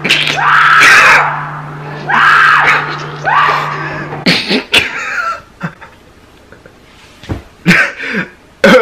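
A man riding a VR roller-coaster simulator screams again and again, each scream rising and then falling, with a steady low hum underneath. The screams and the hum stop about four seconds in, leaving only scattered short, quieter sounds.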